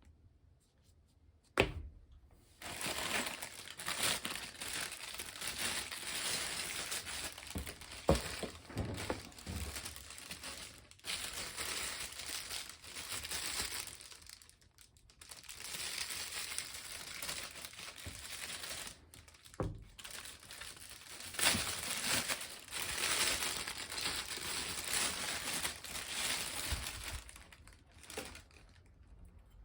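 Packaging being unwrapped by hand: long stretches of crinkling and tearing. A sharp knock comes near the start and another a little past the middle.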